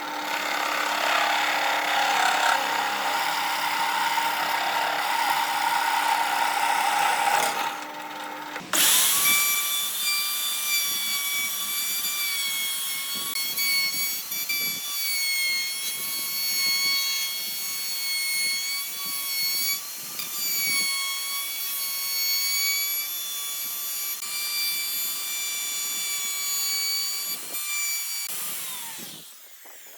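An electric power tool working wood. For about the first eight seconds it makes a loud, rough cutting noise. Then it runs as a steady high-pitched whine for some twenty seconds before winding down near the end.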